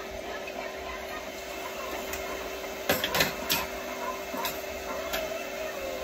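Vacuum cleaner running with a steady hum and a single held tone, with a quick cluster of sharp clicks and knocks about halfway through and a couple more single clicks after.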